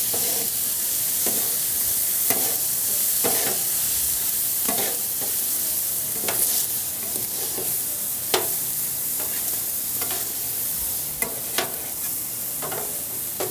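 Cabbage slaw and ground meat, wet with soy sauce and sherry, sizzling on a hot Griddle Master steel griddle top as two metal spatulas stir and scrape across the plate. Steady sizzle, with sharp scrapes and taps of the spatulas about once a second.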